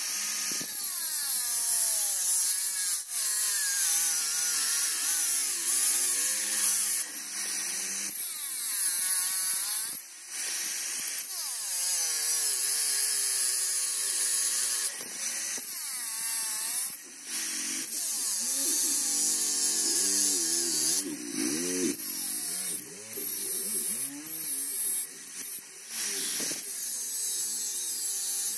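Angle grinder with a thin cut-off disc, switched on at the start, cutting a steel blank from an old stone-cutting saw blade. The motor's high whine drops in pitch each time the disc bites into the steel and climbs back as the cut is eased, over and over, with the hiss of the disc grinding through metal.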